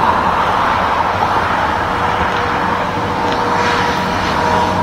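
Road traffic passing, with a Mack dump truck among the vehicles: a steady wash of engine and tyre noise. A faint steady whine joins about three seconds in.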